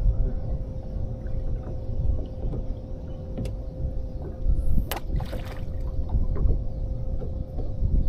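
Fishing boat on the water: a steady low rumble with a constant thin hum throughout. A small click comes about three and a half seconds in, and a sharp click about five seconds in is followed by a brief hiss.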